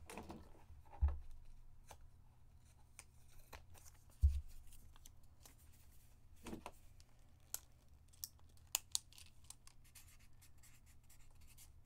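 Hands handling trading cards and small items on a table: scattered light clicks and taps, with a soft thump about a second in and a stronger one about four seconds in.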